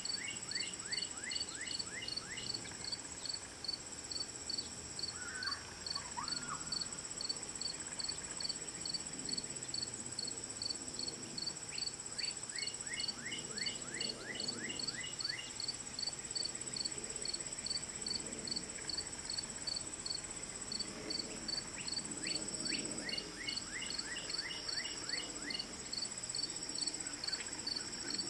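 Insect chorus: a steady high trill with a regular chirp pulsing over it throughout. Three times a quick run of falling chirps joins in, and a short call sounds about five seconds in.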